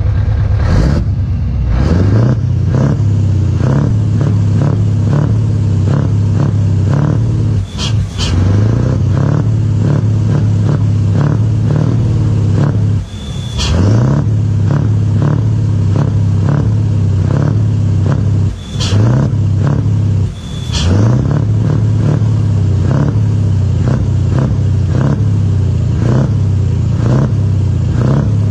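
Scania 144 530's V8 diesel running through a straight, unsilenced exhaust: a loud, steady rumble. Four times the sound drops briefly and rises back up as the engine is blipped, each time with a short sharp hiss.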